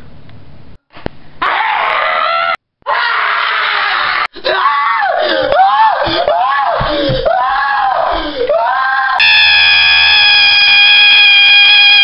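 A young man yelling and screaming at the top of his voice, several loud yells with short breaks, the later ones wavering up and down in pitch. From about nine seconds in they give way to a steady, unwavering high tone like a beep.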